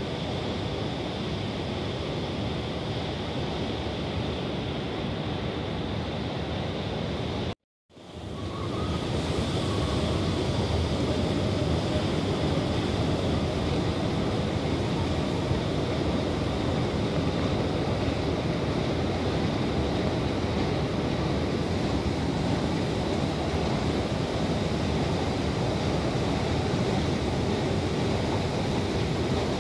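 Steady rushing background noise of an underground metro station with escalators running. The noise drops out for a moment about eight seconds in, then comes back somewhat louder.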